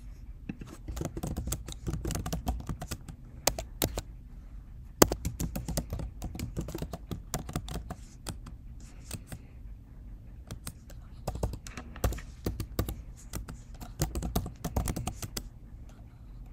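Typing on a computer keyboard: several bursts of rapid key clicks with short pauses between them, and one sharper, louder click about five seconds in.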